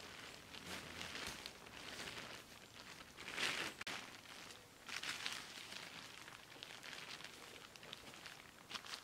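Dry fallen leaves and nylon tent fabric rustling and crinkling as a small tent is pulled from its bag and spread out by hand on a groundsheet, in irregular handling noises, the loudest about three and a half seconds in and another about five seconds in.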